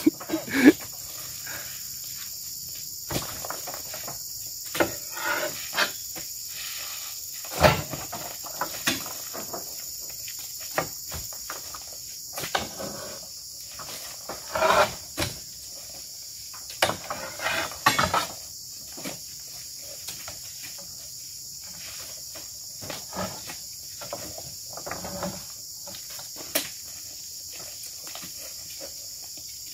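Irregular thuds and knocks of oil palm fruit bunches being speared with a pole and thrown into a lorry's wooden cargo bed, one every second or few seconds, over a steady high chorus of insects.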